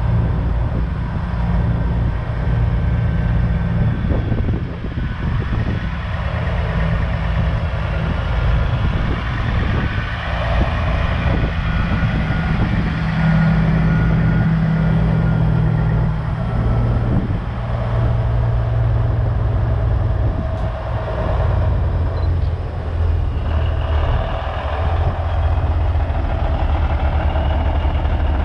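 Diesel engines of semi trucks running as big rigs roll slowly past one after another, the engine note shifting as each truck comes and goes.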